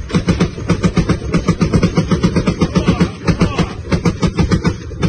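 Machine gun firing one long sustained burst, about eight shots a second, without a pause.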